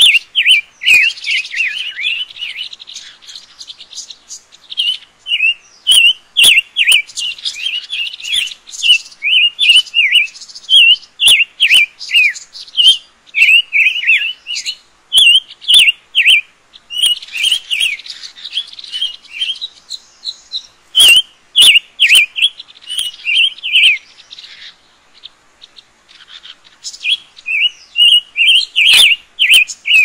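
Small songbirds calling: dense runs of short, sharp, high chirps repeating in bursts, with a lull of a few seconds near the end. A few sharp clicks come through around two-thirds of the way in and again just before the end.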